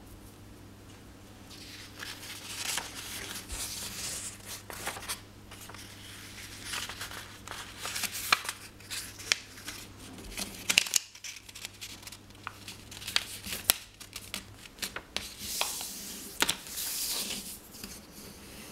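A sheet of paper being handled, folded in half lengthwise and creased flat with the fingers: irregular rustling and sliding with many sharp crinkles and crackles.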